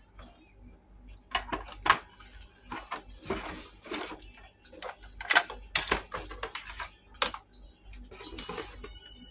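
Hard plastic parts of a toy dog figure clicking, knocking and clattering as they are handled, with a couple of longer rustling bursts in between.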